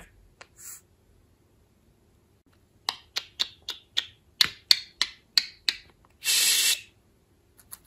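Budgerigar making a quick run of sharp clicks and short high chirps, about four a second, followed by a short raspy hiss.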